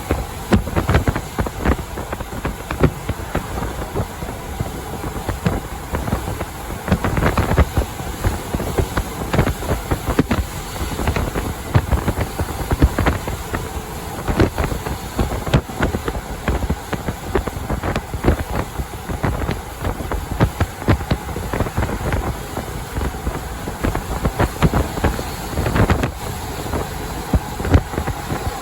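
A truck driving at highway speed: steady road and wind rumble, with frequent irregular wind buffeting on the microphone. No horn sounds.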